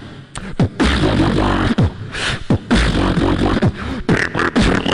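Human beatboxing into a handheld microphone: a rhythmic beat of deep bass kicks and sharp snare-like clicks, with sweeping pitch falls between the hits.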